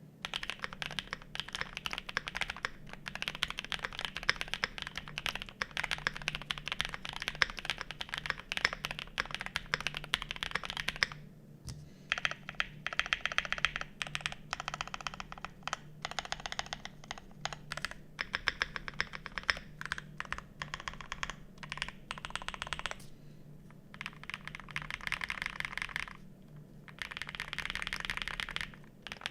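Typing on a Size.L custom mechanical keyboard for a sound test: rapid key clacks in a fast continuous run, then in shorter bursts with brief pauses, and quickening again near the end.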